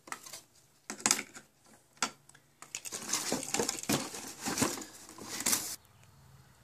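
Handling sounds of a flap disc being fitted onto a new DeWalt 4.5-inch angle grinder, with the grinder switched off: a few separate clicks, then about three seconds of clattering and rustling against its cardboard box that cuts off suddenly near the end.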